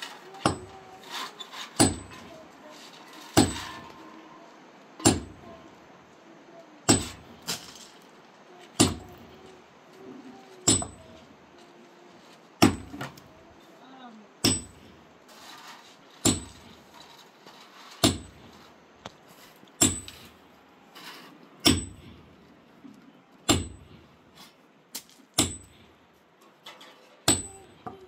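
Heavy strikes at an even pace, about one every two seconds and some sixteen in all. Each blow has a short metallic ring.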